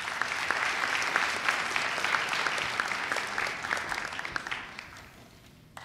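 Audience applauding with many hands, building quickly and fading out near the end.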